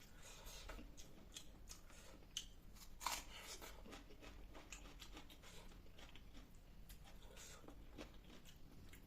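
Close-miked eating sounds: a person chewing food, with scattered small crunchy clicks. The loudest crunch comes about three seconds in.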